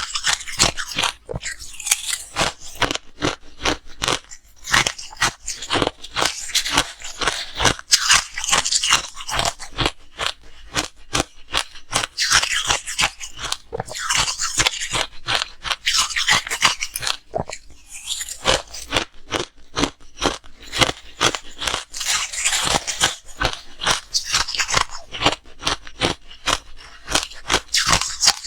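Ice being bitten and chewed close to the microphone, a fast run of sharp, crisp crunches.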